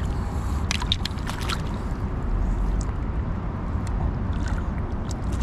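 Water sloshing and splashing around a person in the water, with a cluster of small splashes and drips about a second in, over a steady low rumble.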